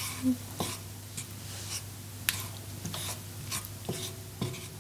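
Wooden spatula scraping and stirring in a wok of coconut milk and curry paste, in short strokes about every half second.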